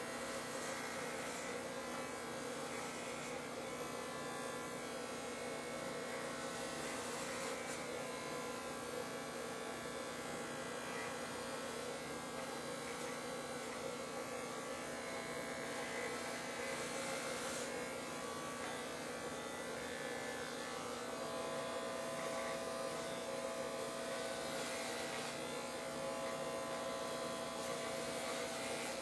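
Electric hair clippers running with a steady buzz as they cut short hair close to the scalp and face, with a few brief brighter rasps along the way.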